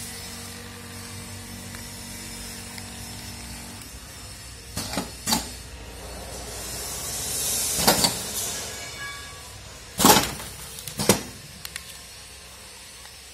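Pneumatic spout-pouch filling and sealing machine working. A low steady hum for the first few seconds, then a hiss of air that swells and fades midway, and several sharp knocks and clunks, the loudest two near the end.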